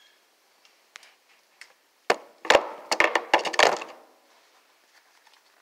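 A quick run of loud, sharp knocks and cracks lasting about two seconds, from a hand grabbing and handling the recording device right at its microphone.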